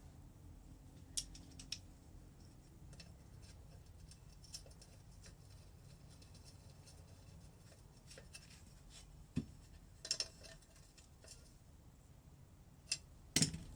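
Scattered small clicks and metal clinks of hand tools and engine parts being handled while a water pump is fitted, over a faint steady hum. The sharpest clicks come in a cluster about two-thirds through and again near the end.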